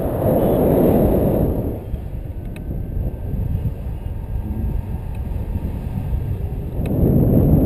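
Wind rushing over the microphone of a pole-mounted camera in flight on a tandem paraglider: a low, rumbling buffet that swells in the first second or two and again near the end.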